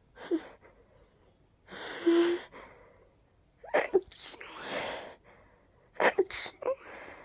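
A person's sneezing fit: several sneezes in quick succession, each finished with a deliberate voiced "choo!", with gasping in-breaths between them.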